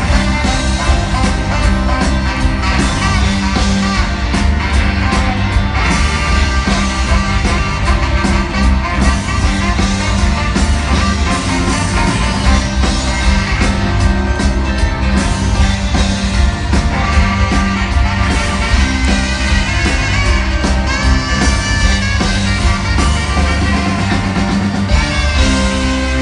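A rock band playing live in an arena, heard from the audience: loud and steady, with heavy drums and bass under electric guitar.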